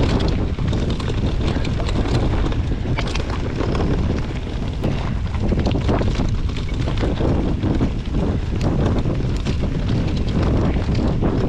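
Wind buffeting the microphone of a camera riding on a mountain bike moving down a dirt trail, a loud steady rumble. It is dotted with small clicks and rattles from the bike over the ground.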